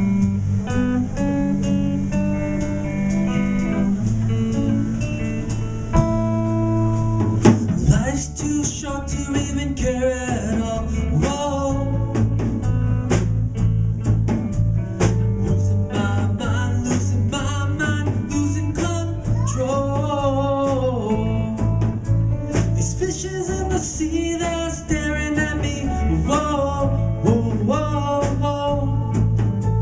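Live rock band playing: guitar chords over bass and drums, with a singing voice over the band after about eight seconds.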